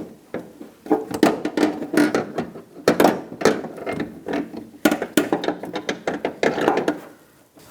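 Irregular metallic clicks and clunks of a steel door hinge being worked onto its mounting studs on a pickup door, some strikes ringing briefly.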